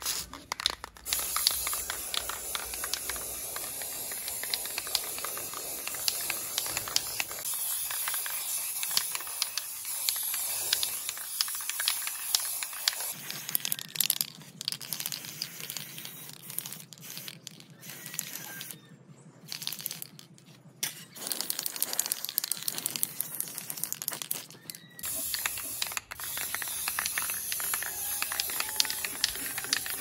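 Aerosol spray-paint can hissing in long steady bursts, with a few short breaks between them.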